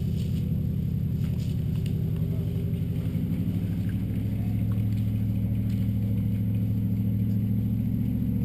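Truck engine running steadily close by, its note shifting slightly about four seconds in.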